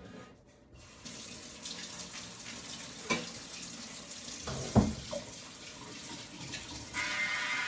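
Kitchen tap running into the sink as the air fryer basket is rinsed, with two knocks of the basket against the sink. A steady hum joins near the end.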